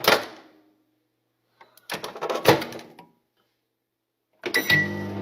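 A sudden bang at the start and a longer clatter with several sharp knocks about two seconds in, with dead silence between them. A steady low hum begins near the end.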